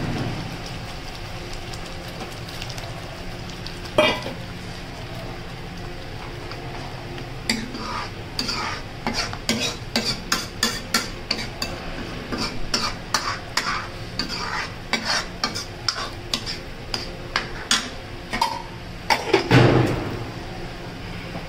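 Steel spoon stirring and scraping a thick onion-tomato masala in a steel kadai, over a steady sizzle of the masala cooking in oil with a little water added. The spoon's quick scrapes and taps against the pan start about a third of the way in, with a louder knock near the end.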